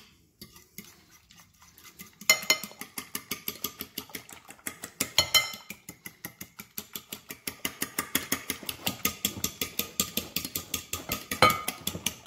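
A metal fork whisking eggs and water into egg wash in a glass pie dish: rapid, even clicks of the fork against the glass, about six a second, starting about two seconds in.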